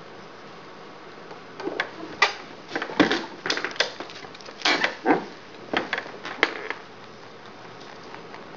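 A mini-lop rabbit crunching popcorn: a run of irregular, crackling crunches for about five seconds, starting about two seconds in.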